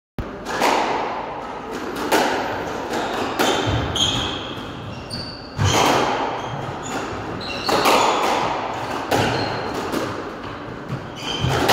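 Squash rally: the ball cracks off rackets and the court walls every second or so, each hit echoing in the enclosed court, with short squeaks of shoes on the wooden floor between hits.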